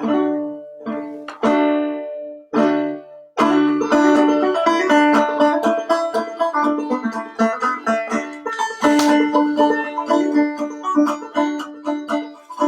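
Clawhammer banjo: a few separate chords ring out, then about three and a half seconds in the tune starts, a steady run of quick plucked notes with a droning high string.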